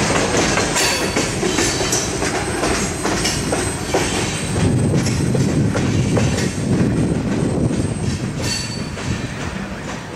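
Freight train hopper cars rolling past, steel wheels clacking rhythmically over the rails, with a thin, steady high squeal. The last car goes by and the sound eases off near the end.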